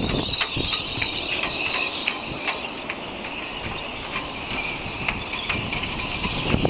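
Typhoon wind buffeting the microphone at a harbour, easing to a lower rumble for several seconds before gusting up again near the end. A steady high-pitched sound and scattered light clicks run through it.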